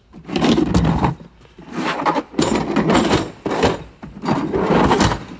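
Hard plastic molded tool cases being handled and slid against each other and the metal drawer of a tool box, in a few bursts of scraping and rattling with sharp knocks.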